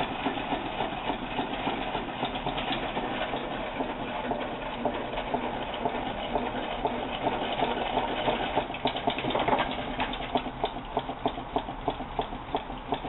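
Homemade two-cylinder beta Stirling engine, built from beer cans and 3D-printed parts, running with a rapid, continuous ticking and clatter from its moving parts.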